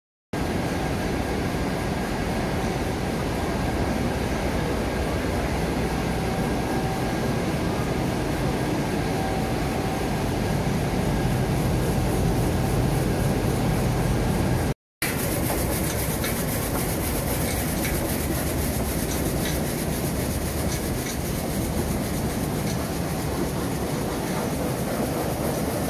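Potato washing machinery running: a washing elevator and brush washer under water sprays make a steady mechanical rumble mixed with rushing water. The sound drops out for an instant about fifteen seconds in, then carries on with a few faint ticks.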